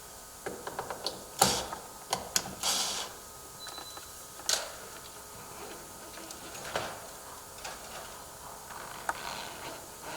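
Irregular clicks, taps and short scrapes of hand work on a door threshold's riser bar as it is adjusted up against the door's bulb seal. The loudest knock comes about one and a half seconds in.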